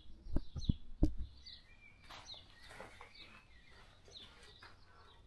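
Small birds chirping faintly, with a few dull knocks in about the first second; no engine is running.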